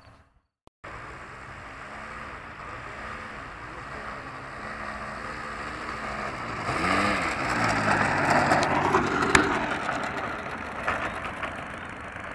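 Robbe Edge 540 model airplane's motor running at low throttle on the ground, a steady hum whose pitch rises and falls once about seven seconds in. A rushing noise swells over it in the middle, with a sharp click near the nine-second mark.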